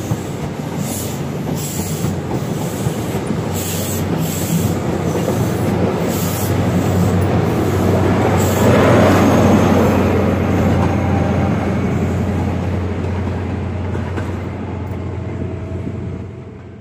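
Mark 3 passenger coaches of a High Speed Train rolling past at low speed, their wheels clicking over rail joints in an even rhythm over a steady low drone. The sound swells to its loudest about halfway through and drops away near the end.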